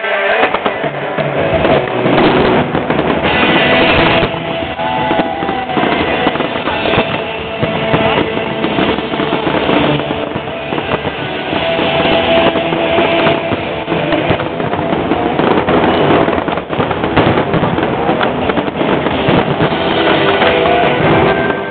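Fireworks display: shells bursting in quick succession, a dense run of bangs and crackle, with music playing along underneath.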